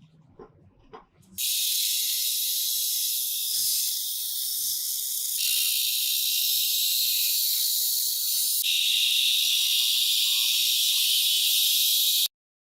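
A steady, loud, high hiss that starts abruptly about a second and a half in and cuts off sharply near the end, changing tone twice along the way.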